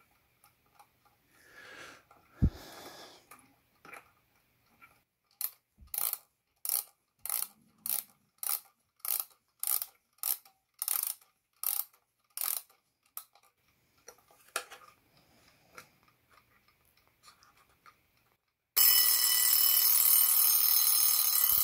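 Advance key-wind bedside alarm clock having its alarm mainspring wound by key, the winding ratchet clicking a little over twice a second for several seconds. About nineteen seconds in, its alarm bell rings, loud and continuous.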